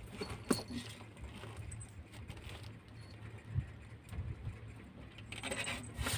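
Faint scuffling, taps and clicks of two kittens play-fighting on a tiled floor, over a steady low hum.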